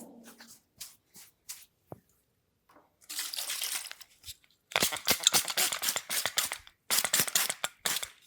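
Hands working oil through long hair and over the scalp and neck: a few light strokes at first, then from about three seconds in long spells of dense, crackling rubbing.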